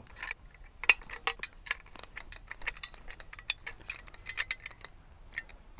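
Steel caster bracket parts and hardware clicking and clinking irregularly as a bolt and nut are fitted and snugged up on a mobile base wheel assembly.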